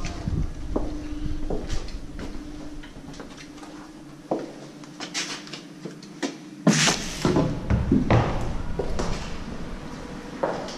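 A door being pushed open and handled: scattered knocks and clicks, with a cluster of louder clattering bangs about two-thirds of the way through.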